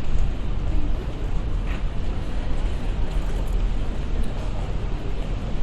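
City street ambience: a steady low rumble of traffic with faint distant voices.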